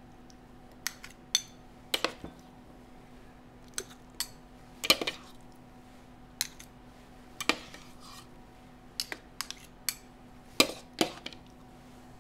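Metal spoons clinking and scraping against each other and the rim of a metal muffin tin as thick batter is portioned into paper cups: a string of irregular sharp taps and clinks.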